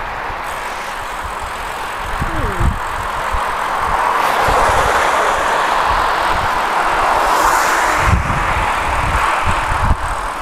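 Wind rushing over the microphone of a handlebar camera on a moving road bicycle, a steady loud rush with irregular low buffeting gusts.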